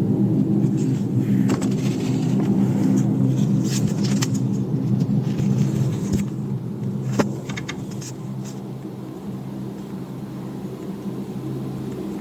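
Loud, steady low droning hum in the night sky, made of several deep tones held together, with scattered clicks and crackles; it eases slightly after about seven seconds. It is the sound reported as 'trumpets in the sky', which the narrator puts down to helicopters.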